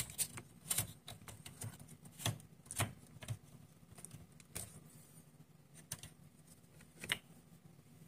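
Irregular sharp plastic clicks and knocks, about seven of them, as a small plastic cooling fan and its wire connector are unclipped and pulled out by hand.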